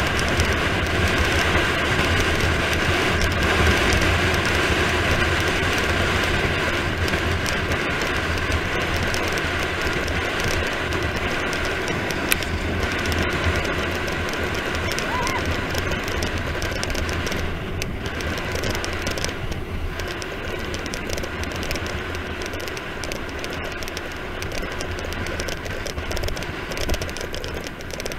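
Wind rushing over an action camera's microphone with tyre and road rumble during a fast road-bike descent, a dense steady roar that gradually eases over the second half.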